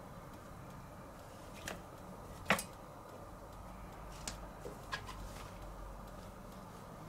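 A few short, sharp clicks and taps as a cat paws at and tugs a plush fish toy, the loudest about two and a half seconds in and a quick cluster of three a couple of seconds later.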